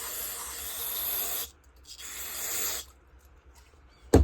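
Aerosol cleaner can spraying in two hissing bursts, one ending about a second and a half in and a shorter one a moment later, while a part of a small two-stroke leaf blower engine is cleaned out. A sharp knock near the end.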